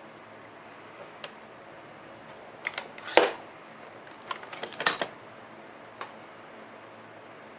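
Sharp little clicks and snaps of small metal parts as the brushes and brush springs are worked into a model locomotive's motor. They come in two clusters, the loudest snap about three seconds in, with a few lighter clicks before and after.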